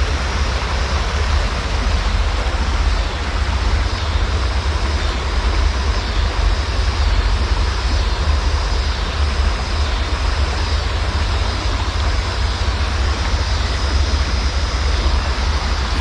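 River rapids rushing steadily, with a low wind rumble on the microphone.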